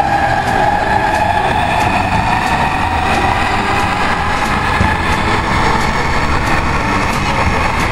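Kelana Jaya Line LRT train running, heard from inside the carriage: a steady rumble under a motor whine that climbs slowly in pitch.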